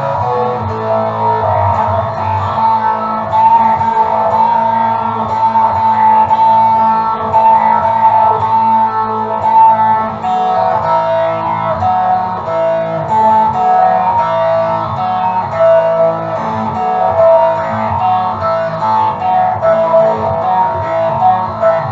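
Music led by guitar: plucked and strummed guitar with sustained notes over a steady bass line.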